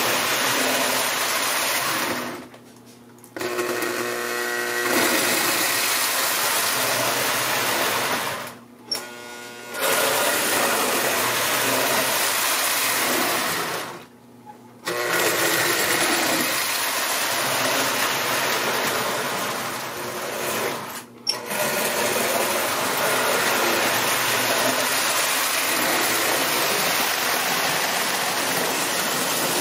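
Marx tinplate electric toy trains running on the layout track: a steady mechanical whirr of motor, gears and wheels clattering on the rails. It drops out abruptly four times, each break under a second or so.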